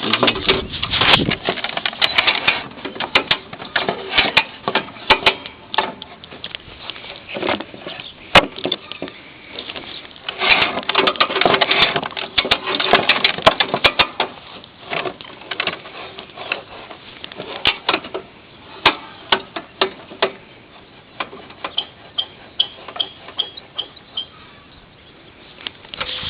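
Irregular clicks, knocks and rattles of hands-on handling, busiest about midway, with a short quick run of even ticks near the end.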